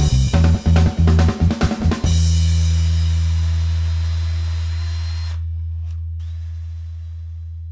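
Background rock music: drum kit hits for about two seconds, then a long low bass note that slowly fades away.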